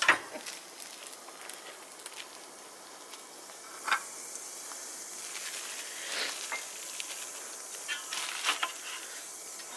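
Smashed burger patties sizzling on a griddle plate inside a closed ceramic kamado grill, a steady muffled hiss. A sharp click right at the start and another about four seconds in, with fainter clicks later.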